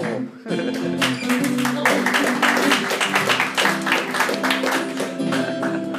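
Acoustic guitar strummed in a steady rhythm, the opening chords of a song before the singing comes in.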